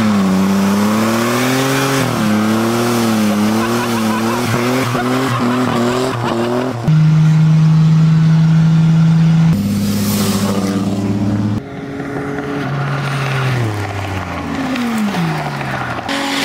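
Car engines revving hard in short clips cut together: first a burnout, the engine speed rising and falling over squealing tires, then a steady high rev, then the engine pitch dropping several times as the cars ease off.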